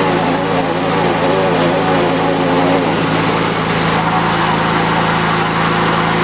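Lawn mower's small engine running steadily at high throttle, with a constant hum and a broad hiss over it, during a wheel-spinning burnout.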